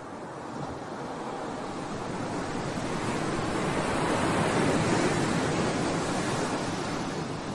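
A rushing noise that swells to its loudest about halfway through and then eases off.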